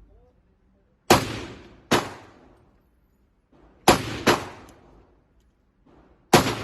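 Five gunshots at uneven spacing, two of them close together, each with a short echoing tail.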